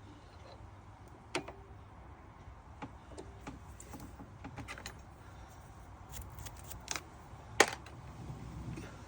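Scattered clicks and knocks of small metal parts and tools being handled, over a low steady hum. The loudest is a single sharp click about three-quarters of the way through.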